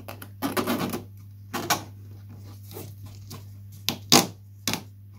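Plastic covering film on a balsa model glider fuselage crackling and tearing in short bursts as it is peeled off and trimmed with a craft knife, with three short, sharp crackles near the end.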